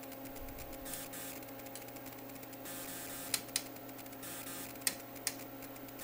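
Sharp clicks from the detented rotary knobs of an HP 3320 frequency synthesizer being turned, two close together around the middle and two more about a second later. A steady hum from the running bench instruments sounds underneath.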